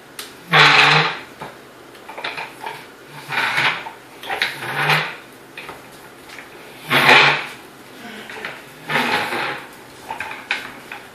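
Plastic wheels of a small wooden toddler ride-on bike rolling over a tile floor in short spurts, each push lasting about half a second to a second, every one to two seconds.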